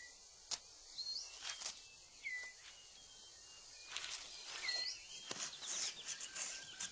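Rainforest ambience: a bird repeats a short, hooked, rising whistle every second or two, over a steady hiss of insects. Scattered crisp rustles and clicks are heard, as of leaf litter being moved.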